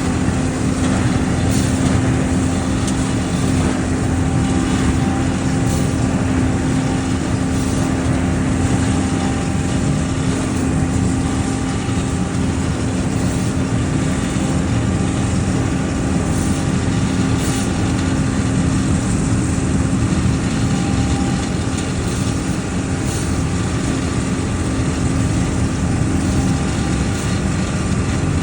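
Scag Windstorm stand-on debris blower running steadily: a constant engine note under an even rush of blown air, with no change in speed.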